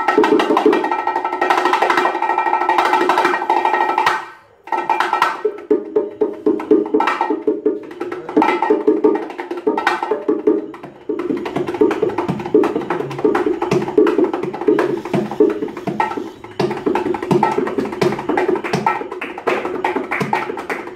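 Bongo drums played solo by hand: rapid strokes on the two heads, with a brief break about four seconds in before the rhythm resumes.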